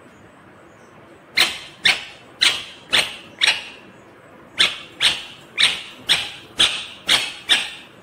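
Indian ringneck parakeet (rose-ringed parakeet) giving a series of short, loud, harsh calls, about two a second: five, a brief pause, then seven more.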